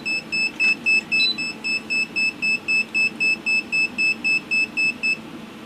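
Kaiweets ST120 pen multimeter's high-voltage warning beeper sounding a steady run of short, high beeps, about four a second, while on 600 V AC. The beeping stops about five seconds in, lagging behind the voltage being removed. One short, higher blip comes about a second in.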